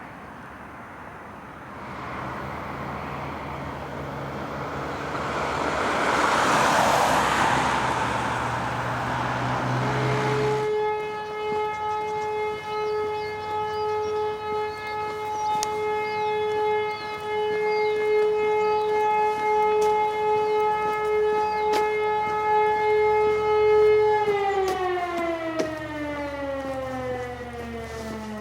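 A rushing noise swells and fades. Then an E57 electromechanical siren sounds a steady, held tone for about thirteen seconds, part of the "Feueralarm" fire-alarm signal, before winding down in a long falling glide near the end. Faint bird chirps sound over the siren tone.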